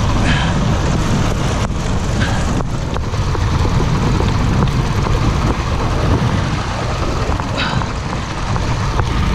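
Outboard motor running with the boat under way, water rushing in the churning wake and wind buffeting the microphone, a steady loud noise throughout.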